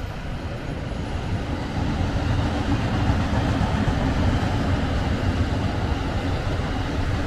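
Low rumble of a passing vehicle that grows louder about two seconds in and then holds steady.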